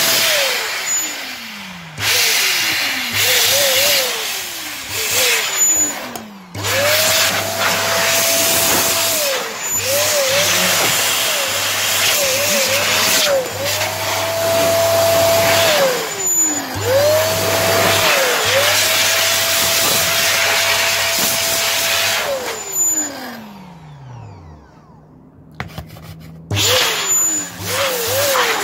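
it Dusters CompuCleaner electric air duster blowing in repeated blasts. Its motor whine climbs to a steady pitch on each blast and slides down as the motor spins down when it is let off. There are several long held blasts in the middle and a short lull before a last burst near the end.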